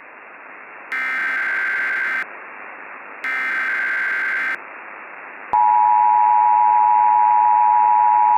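Emergency Alert System tones over a steady hiss. First come two buzzy, screeching data bursts of the alert header, each about a second and a quarter long, with a pause between them. Then, after a click about five and a half seconds in, the steady two-note EAS attention signal begins.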